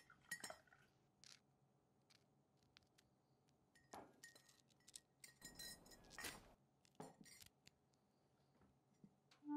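Faint, scattered clicks and clinks of small hard game pieces knocking against one another on the ground, a few at a time with pauses of a second or more between them.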